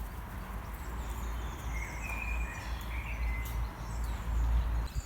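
Outdoor garden ambience: a steady low rumble with a few faint bird chirps about two to three seconds in.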